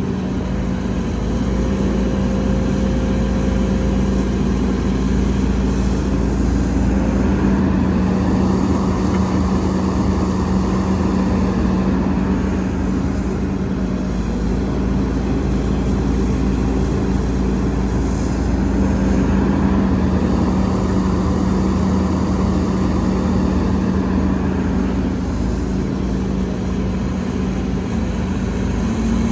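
Heavy diesel earthmoving machinery running steadily under load: a constant deep engine drone with a few gentle swells.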